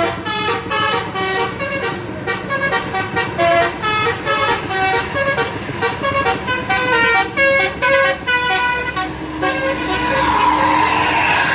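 Tour bus telolet horn playing a fast tune of short stepped tones. Near the end it gives way to a louder rush of noise.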